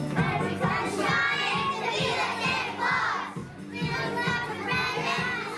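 A group of young children singing loudly along to recorded music with a steady beat.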